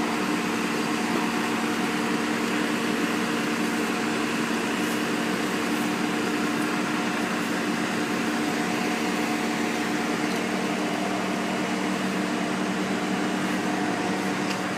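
Asphalt paver's engine running steadily at close range, a constant droning hum.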